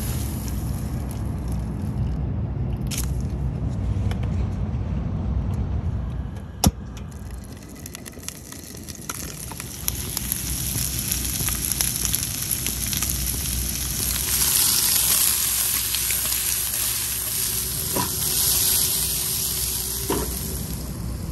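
Shrimp sizzling in a frying pan on a portable camp stove, the sizzle growing louder and hissier in the second half. A single sharp clack comes about six or seven seconds in.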